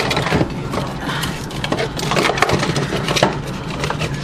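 Food containers and packaging being handled and moved about, with many small clicks, taps and knocks over a steady low hum.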